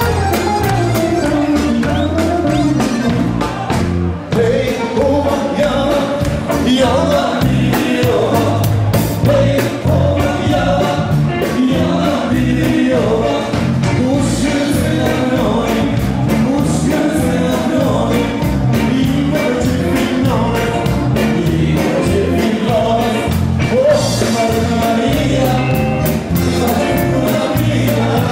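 A live band plays with a singer over a steady beat.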